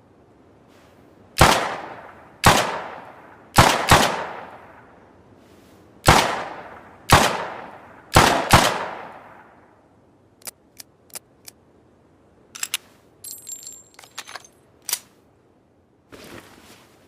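Revolver gunshot sound effect: eight single shots, some in quick pairs, each with a long ringing tail. Then four short dry clicks, a run of light metallic clicks and rattles, and a brief soft scrape near the end.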